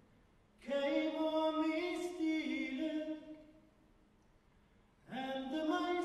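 Four male voices singing a cappella in close harmony. One sung phrase begins about half a second in and dies away after about three seconds; after a short pause the next phrase begins near the end.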